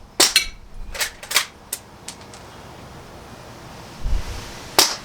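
A string of sharp clicks and snaps from the Barra 1866 lever-action airgun being worked and shot: a quick cluster in the first two and a half seconds, a low thump after about four seconds, then one louder snap near the end.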